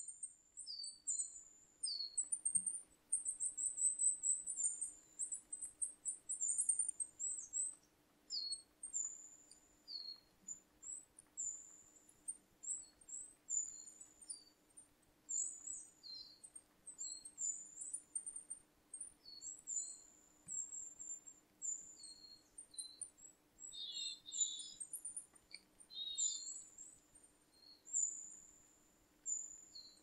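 Small forest birds calling: many short, very high, thin calls repeated throughout, with a couple of lower, scratchier chirps about two-thirds of the way in.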